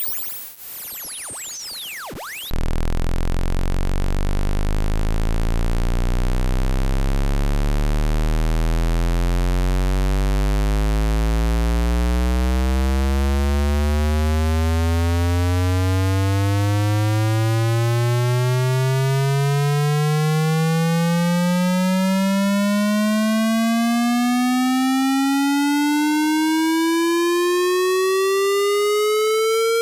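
Quieter sweeping electronic chirp tones that cut off about two seconds in. Then a loud synthesized buzzy tone, rich in overtones, starts as a deep hum and glides slowly and steadily upward in pitch.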